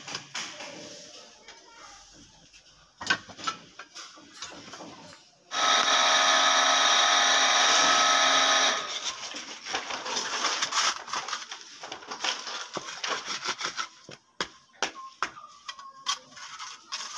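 Scattered knocks and clicks at first. About five seconds in comes a loud, steady droning tone that lasts about three seconds. After that, a steel trowel scrapes and taps over wet concrete as it is spread and smoothed, in many short strokes.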